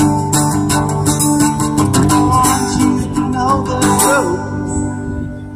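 Guitar-led pop music: strummed guitar over bass, with a few gliding notes in the middle. The strumming stops about four seconds in and the last chord rings out.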